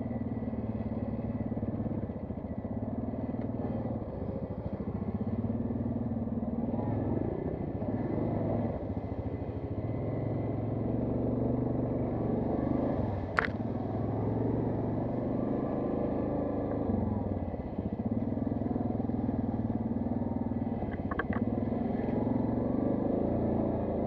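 Quad bike (ATV) engine running through changing throttle on a rough trail, its pitch rising and falling. There is a single sharp knock about halfway through and a few light clicks near the end.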